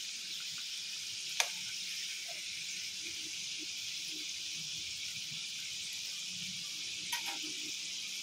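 Samosas deep-frying in hot oil in a steel kadhai: a steady sizzling hiss. A sharp click of the metal spoon against the pan comes about a second and a half in, with a couple of lighter clicks near the end.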